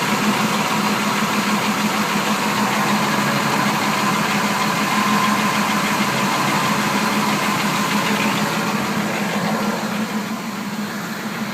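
Engine idling steadily with a rapid ticking from the bottom of the engine, which the owner suspects is a broken lifter.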